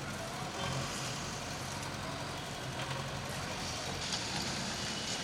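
Steady vehicle noise: a low engine hum under an even hiss, with no clear beat to it.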